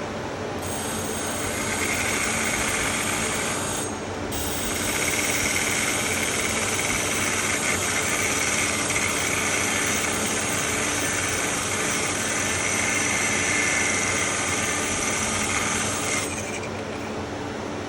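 A pizza cutter's steel wheel edge held against the spinning 600-grit abrasive of a Wolff Hira To flat hone: a steady grinding hiss, broken off briefly about four seconds in, then stopping near the end. A steady hum runs underneath.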